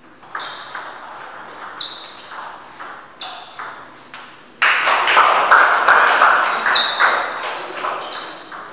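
A table tennis rally: the ball clicks and pings off the bats and table, a few strikes a second. About halfway through, the rally ends and spectators applaud loudly, the applause slowly fading while the ball goes on bouncing.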